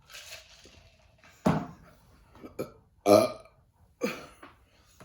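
A person burping loudly three times, about a second and a half, three and four seconds in; the middle burp is the loudest.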